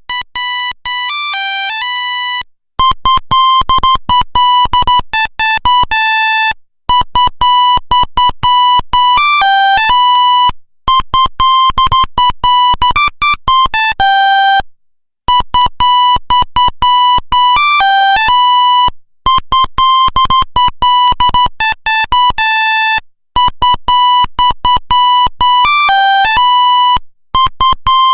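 Nokia 1100 monophonic ringtone: a single buzzy electronic tone plays a fast melody of short notes. After an opening phrase and a short break, a phrase of about four seconds repeats over and over with brief gaps.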